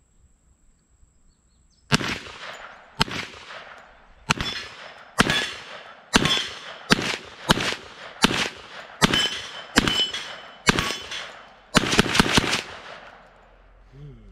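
TNW Aero Survival Rifle, a 10mm semi-automatic pistol-caliber carbine, firing its first magazine. It fires about a dozen single shots roughly a second apart, then three or four in quick succession, each shot with a short echo. The shooting starts about two seconds in.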